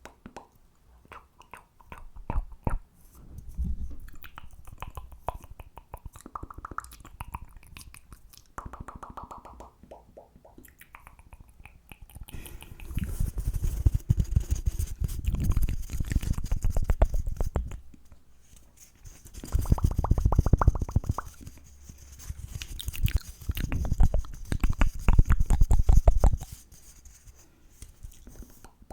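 ASMR mouth sounds and fast tapping close to the microphone: dense runs of quick clicks and pops. They come in bursts that grow heavier in the second half.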